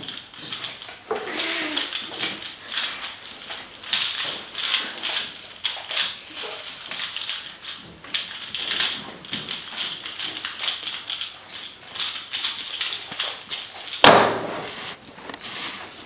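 Plastic 3x3 speed cube being turned fast by hand in a speedsolve: a dense, rapid clicking and clacking of the layers. A louder thump comes near the end.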